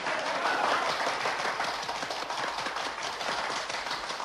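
A large crowd of spectators applauding steadily, many hands clapping at once.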